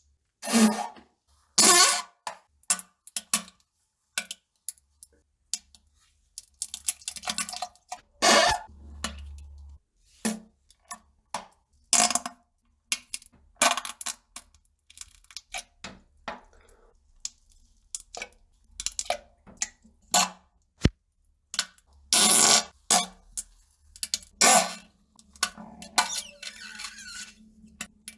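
A rapid string of fart sounds, one after another with dead silence between them, some short and sputtering, a few drawn out near the end.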